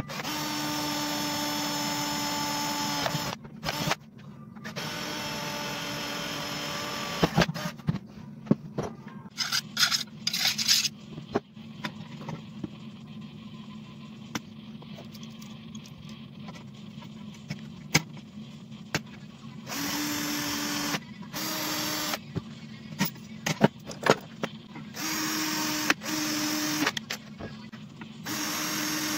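Cordless drill boring holes through a steel bracket: its motor whines steadily in two runs of about three seconds, then in several shorter runs near the end. Between the runs come scattered knocks and clatter as the metal is handled.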